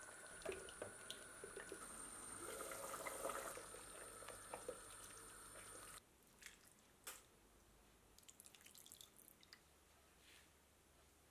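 Pot of goulash soup simmering, small bubbling pops over a steady faint hum. About six seconds in it cuts to a ladle clinking against a ceramic bowl, then a patter of soup being poured in.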